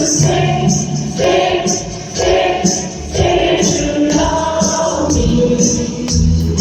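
A live pop band playing, with several voices singing held notes together in harmony over a steady bass line.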